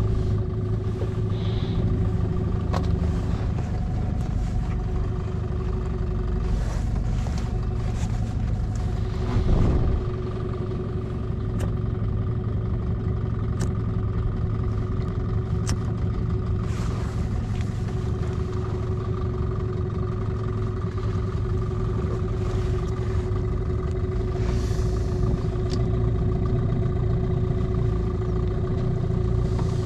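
Small fishing boat's outboard motor running at a steady speed, a constant droning hum, with a brief louder swell about nine seconds in.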